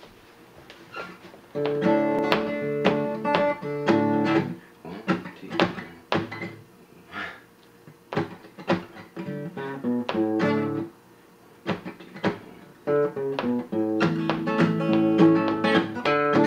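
Gibson flat-top acoustic guitar played solo, fingerpicked chords with bass notes, starting about a second and a half in after a few faint knocks of handling. It thins to a few single notes twice before fuller playing picks up again near the end; this is the instrumental intro before the singing.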